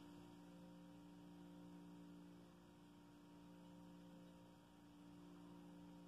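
Near silence: room tone with a faint steady hum of several held tones.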